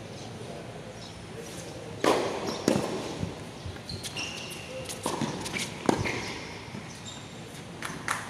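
Tennis ball being struck and bouncing on a hard court: several sharp pops a second or so apart, the loudest about two seconds in and near six seconds, with short high squeaks of tennis shoes on the court surface between them.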